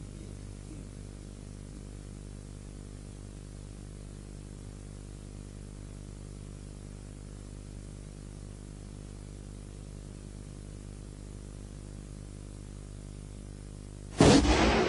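Steady electrical hum and hiss with no other sound, then a sudden loud bang near the end.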